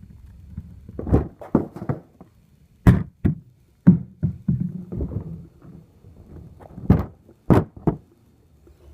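A BMX bike thudding and knocking against the ground as it is ridden through beginner tricks: a run of about ten sharp thuds, the loudest about three, four and seven seconds in, with rattling between them.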